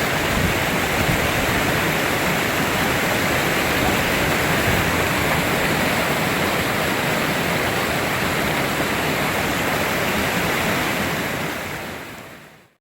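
Waterfall pouring, a steady loud rush of falling water that fades out to silence just before the end.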